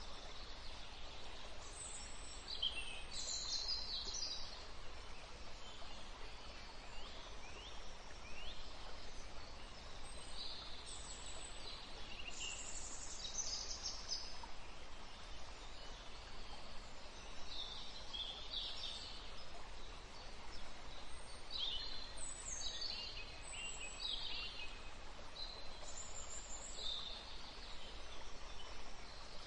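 Birds chirping and warbling in short phrases again and again over a steady faint hiss.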